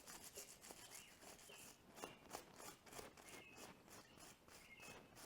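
Near silence: faint birds chirping now and then, with light, regular scratching strokes of a plastic-bristle brush scrubbing a brake caliper.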